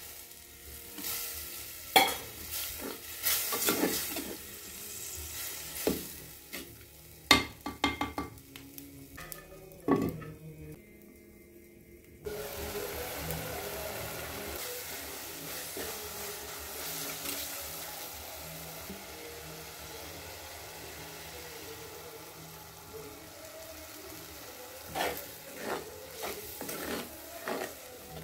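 A metal spoon stirs and scrapes curry in an earthenware pot, with sharp clicks and knocks against the clay. About twelve seconds in it changes abruptly to a steady hiss of the curry simmering, and the spoon's clicks return near the end.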